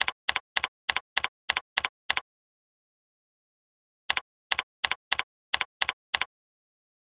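Computer keyboard keystroke clicks typing a login: about eight quick, evenly spaced clicks, a pause of about two seconds, then about seven more as a password is entered.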